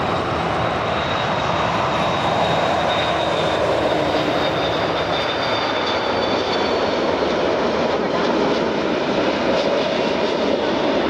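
Airbus A330-300 airliner's jet engines on short final approach, a steady loud rush of engine noise with a high whine that slides slowly down in pitch as the aircraft passes close by.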